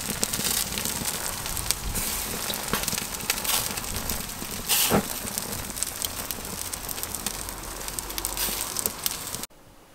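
Hot-smoked herring kippers sizzling and crackling on the hot wire grill of a smoker: a steady hiss dotted with many small pops. It cuts off abruptly near the end.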